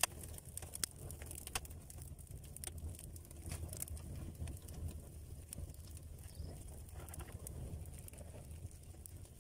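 Thin twigs burning with tall flames on hot coals in a brick grill: irregular sharp crackles and pops over a low, steady rumble.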